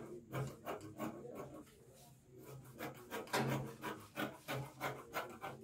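Scissors cutting through cotton wax-print fabric, a quick run of crisp snips about three or four a second, pausing briefly after about a second and a half before the snipping starts again.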